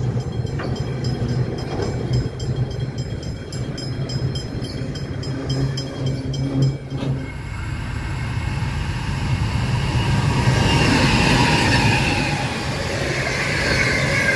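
Background music with a steady beat for about the first seven seconds. Then a freight train passes close by, its wagons rushing over the rails, with wheel squeal rising about ten seconds in.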